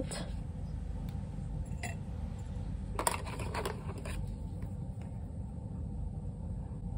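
Light clicks and scrapes of a metal watercolour paint tube and a thin metal wire being handled, with a short cluster about three seconds in, over a steady low hum. The wire is used to clear gum arabic seeping from the tube's opening.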